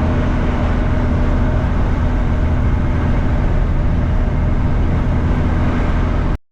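Heavy diesel truck engine running steadily at cruising speed, with road noise. The sound drops out abruptly for a moment near the end.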